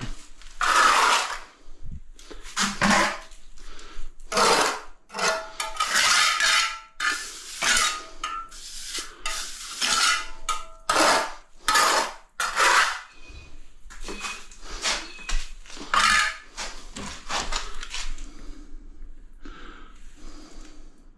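Metal hand tool scraping in a long series of short strokes, about one or two a second, with light metallic clinks and brief ringing.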